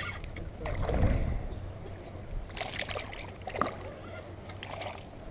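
Sounds of a hooked bass being reeled to the side of a small boat on a spinning rod: handling and water noise, with a dull thump about a second in and a few short splashy bursts and clicks later.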